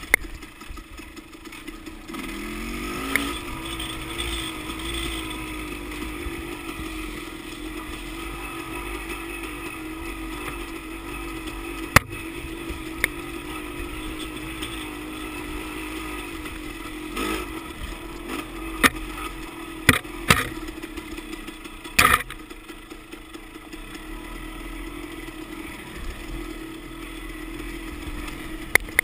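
Dirt bike engine running on a trail ride, climbing in pitch about two or three seconds in and then holding fairly steady. Sharp knocks and clatters come now and then, the loudest around the middle and two-thirds of the way through.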